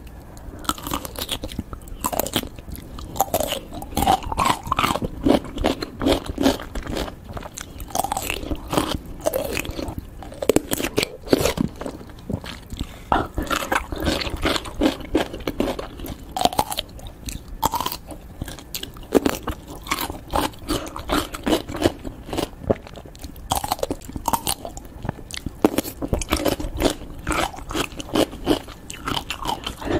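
Close-miked biting and chewing of whole pickles: crisp crunches coming in quick, irregular succession.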